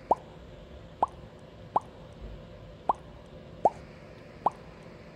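Six quick rising 'bloop' pop sound effects, about one a second, each a short upward-sweeping plop.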